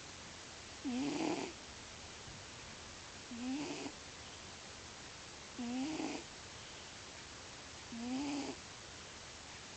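A sleeping cat snoring loudly in an even rhythm: four pitched snores, each about half a second long and spaced a little over two seconds apart.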